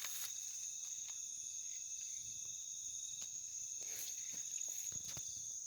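Night insects, most likely crickets, keeping up a steady high-pitched trill, with a few soft clicks or rustles over it.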